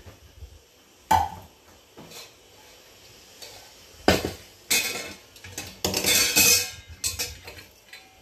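Pots and utensils clattering and knocking against each other on a kitchen counter. There is a single knock about a second in, then a busy run of clatters over the last few seconds.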